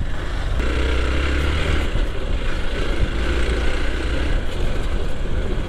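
Single-cylinder dual-sport motorcycle engine running steadily while it rides a dirt track, a low continuous hum with an even rush of noise over it.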